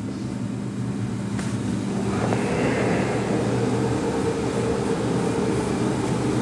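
Steady mechanical hum of a fan-type machine running, growing louder about two seconds in, with a faint click about a second and a half in.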